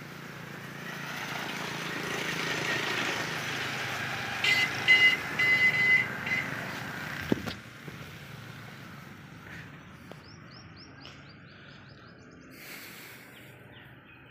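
A vehicle passing, its noise swelling and fading, with several short horn toots in the middle as the loudest part. A single sharp knock follows, then faint bird chirps.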